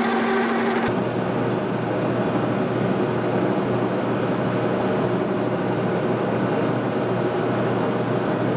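Boring machine running while a boring bar works through the bore of a steel backhoe boom part. A steady pitched tone stops suddenly about a second in, leaving an even machine noise with a low hum.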